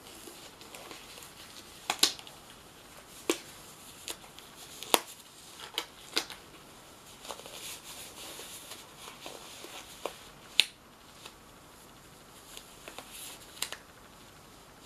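Latex surgical gloves being worn and handled: a series of sharp, irregularly spaced snaps of stretched latex, with soft rubbery rustling between them.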